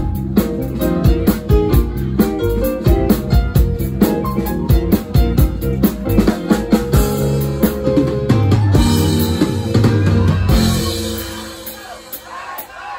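Live band playing an instrumental with drum kit and guitar to a steady beat. About two-thirds of the way through, the beat stops on a held chord with a cymbal wash, which then fades away near the end.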